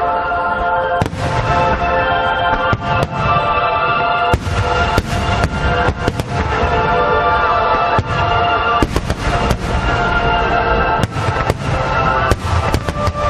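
Aerial fireworks bursting with a dozen or more sharp bangs at irregular intervals, over steady background music.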